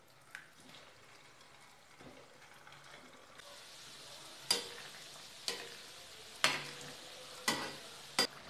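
Rice-flour fingers deep-frying in hot oil in a metal kadhai: a faint sizzle that grows louder about three seconds in as they are stirred, with five sharp knocks of a metal ladle against the pan about a second apart.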